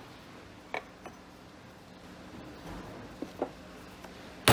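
A few faint clicks and knocks from handling work on a wooden bench, then a loud sharp hammer blow right at the end.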